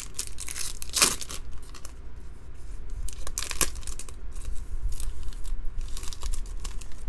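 Foil wrapper of a trading card pack being torn open and crinkled by hand, a series of short crackling rips, the loudest about a second in.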